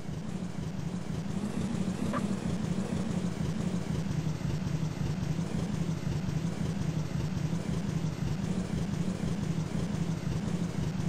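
Turbocharged Toyota 2JZ straight-six engine running steadily at a constant speed, with a dense low rumble and no revving.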